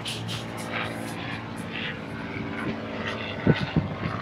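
A steady engine-like drone made of several steady low tones, with a few heavy low thumps starting near the end.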